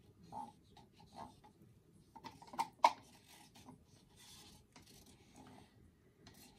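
A stir stick scraping and tapping against the inside and rim of a disposable cup as the last acrylic paint is scraped out. There are scattered light scrapes and clicks, with two sharper taps a little under three seconds in.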